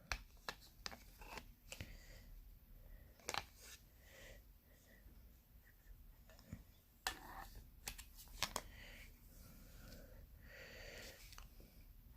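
Quiet handling noise of a Glock FM81 field knife and its plastic sheath: scattered sharp clicks and faint rustles.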